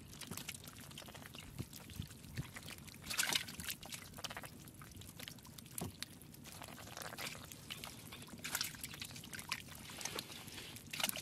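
Live fish flopping on wet mud and in shallow water, making irregular wet slaps and splashes. The loudest splashes come about three seconds in, again around seven to nine seconds, and near the end.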